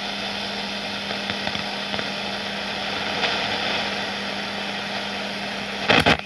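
Shortwave static from a Norelco FM-AM Deluxe portable radio's speaker: a steady hiss with a low hum, the sound of a shortwave band with no station coming in and no outside antenna connected. A few loud, sharp crackles come near the end.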